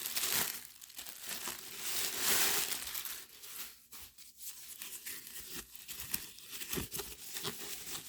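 Wrapping being crinkled and pulled off a small boxed item by hand, loudest in the first few seconds, then quieter rustles and small clicks.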